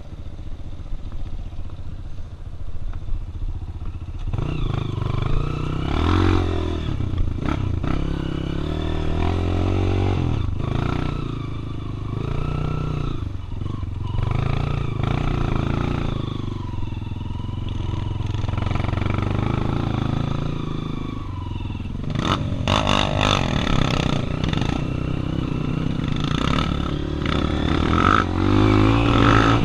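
Dirt-bike engine running quietly, then louder from about four seconds in, its revs rising and falling as the bike rides along the trail. Rattles and clatter are heard over the engine, most of them a little past two-thirds of the way through.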